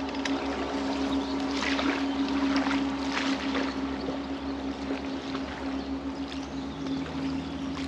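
A steady engine hum holding one constant pitch, with a few faint higher rustles or chirps in the first few seconds.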